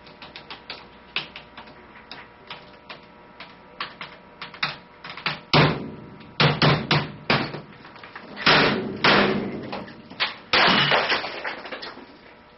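A laptop being bashed to pieces: a run of light, quick taps and clicks on it, then about halfway through a series of loud, heavy blows with crunching, rattling tails.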